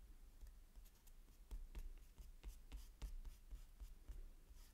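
Kneaded eraser rubbing pencil construction lines off watercolour paper: faint, irregular rubbing strokes on the paper.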